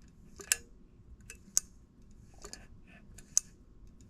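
Cadet double-pole baseboard heater thermostat clicking as its knob is turned by hand: a few sharp clicks about a second apart, the contactor making and breaking contact, which would switch the heater element on and off.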